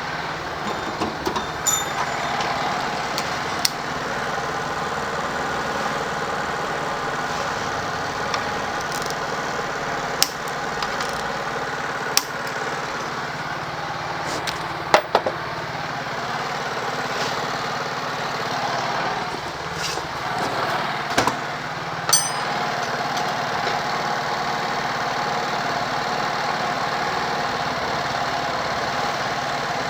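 Yamaha Force 155 scooter's single-cylinder engine idling steadily, with a dozen or so sharp clicks and knocks over the first two-thirds.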